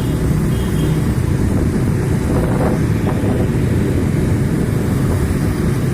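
Steady, loud low rumble of a vehicle on the move: road and engine noise with no change in pace.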